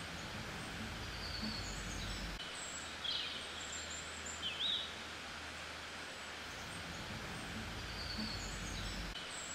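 Outdoor ambience of birds chirping and calling over a steady background hiss, repeating as a loop about every seven seconds.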